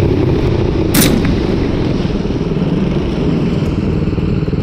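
A single rifle shot about a second in, over a steady low rumble.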